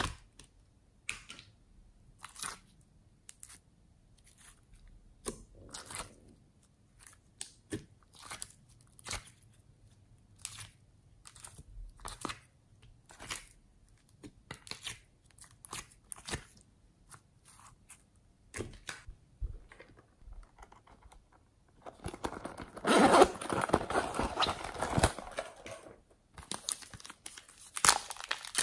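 Hands squishing and pressing glossy slime, giving separate sticky clicks and pops about once or twice a second. About two-thirds of the way through comes a few seconds of dense crinkling and crackling, and it starts again near the end.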